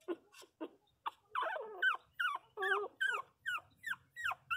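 Young puppies, about three weeks old, whimpering and crying in a quick series of short, high cries, about three a second, each falling in pitch, starting about a second in. They are crying for their mother, wanting to nurse.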